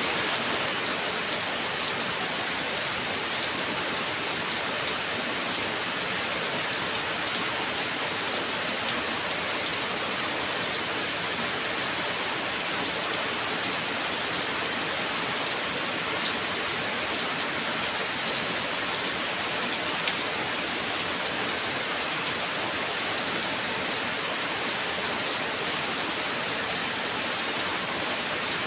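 Heavy rain falling steadily, an even hiss with occasional sharper drop taps.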